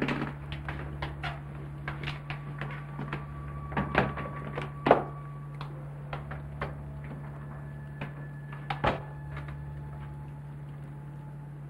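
Footsteps and small knocks as someone carries a suitcase out of a room, then a door shutting near the end with a sharp knock, over a steady low hum.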